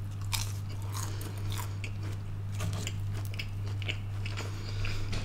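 A person biting and chewing crunchy fried chicken, a run of short scattered crunches, over a steady low hum.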